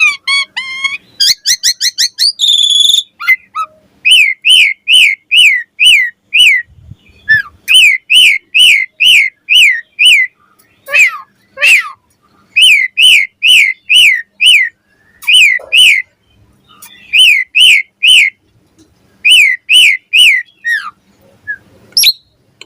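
Asian pied starling (jalak suren) singing: runs of loud, repeated down-slurred whistles, about two to three a second, broken by short pauses, with a quick jumble of varied chattering notes in the first two seconds.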